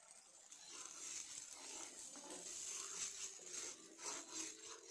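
Manchurian sauce simmering with a soft hiss in a non-stick pan just after cornflour slurry goes in, then a steel spoon stirring through it, scraping the pan in a few quick strokes near the end.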